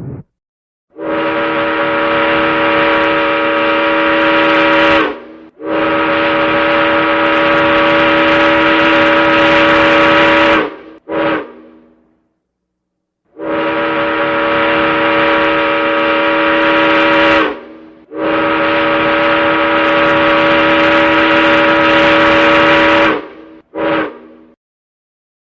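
Ship's horn sounding two long blasts and one short blast, then after a pause the same signal again. Each blast is one steady chord of several tones.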